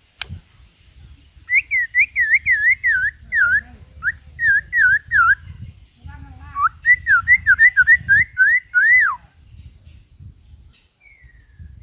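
White-rumped shama singing two runs of quick, repeated whistled notes, about three a second, each note dipping and then rising, with a short pause between the runs. A sharp click comes right at the start.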